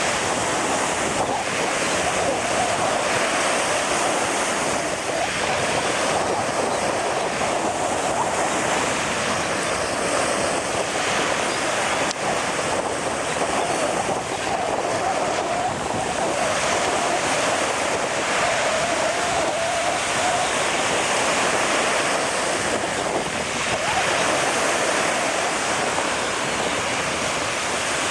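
Ocean surf washing in, mixed with wind buffeting the microphone: a steady, dense rush of noise.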